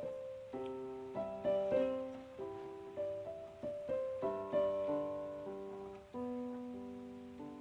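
Background piano music: a slow run of single notes and chords, each struck and then fading.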